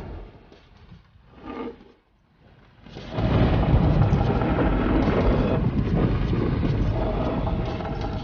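A couple of short, softer noises, then about three seconds in a loud rumbling noise starts and runs for about five seconds before fading.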